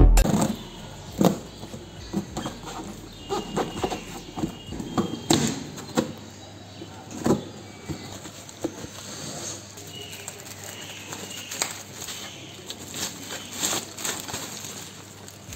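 Cardboard box being opened and handled: irregular rustles, scrapes and clicks of flaps and packing tape being cut with a box cutter, then bubble wrap crinkling as it is pulled off near the end.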